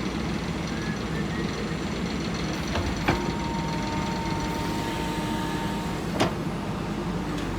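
Heavy diesel engine running steadily, with two sharp knocks about three seconds apart and a thin steady whine between them.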